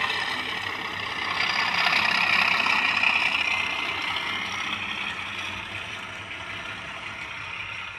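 A steady, engine-like mechanical noise with a strong hiss. It swells about two seconds in, then slowly fades away.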